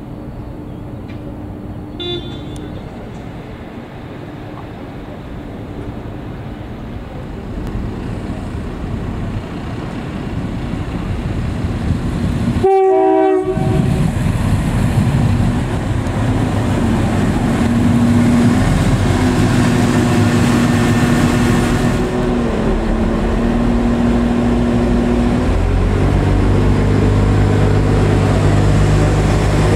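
A train rumbles in the distance, then a short train horn blast sounds about halfway through. A Northern Ireland Railways CAF diesel multiple unit then arrives, its underfloor diesel engines droning steadily and getting louder and deeper as it draws alongside near the end.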